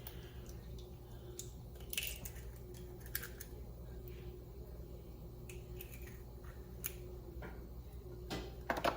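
Quiet kitchen with a steady low hum and a few scattered light clicks and taps from handling eggs, bowls and utensils.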